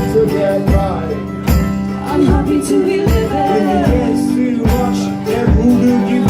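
Live acoustic band playing an instrumental passage: strummed acoustic guitars over a steady beat.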